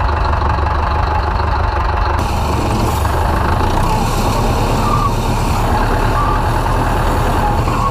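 Ursus C-4011 tractor's diesel engine running steadily and loudly, its low exhaust pulsing even throughout. A higher hiss joins about two seconds in.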